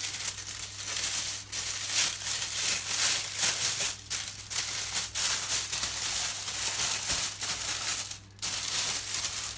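A thin plastic oven-roasting bag crinkling and rustling in uneven spurts as a bone-in beef joint is pushed into it by hand, with a short pause near the end.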